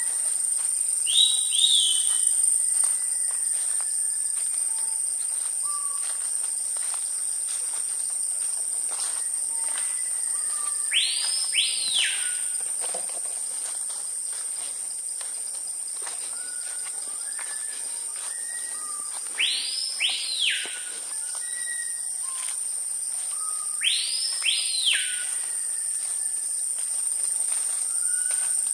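Rainforest ambience: a steady high-pitched insect drone, with a bird giving a loud whistled call of two quick rising-and-falling sweeps four times, and softer short chirps from other birds in between.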